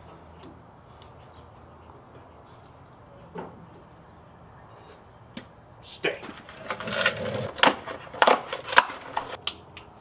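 Sealed-beam headlight being pushed into its metal headlight bucket: a single knock, then a dense run of sharp metal clicks and knocks in the second half.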